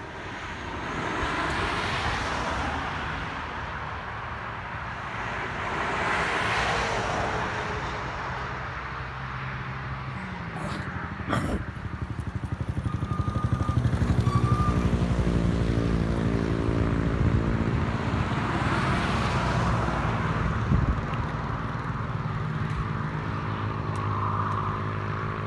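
Vehicles passing one after another on a road up a hill, their tyre and engine noise swelling and fading. From about halfway, a heavy engine runs loud and steady as it pulls up the slope.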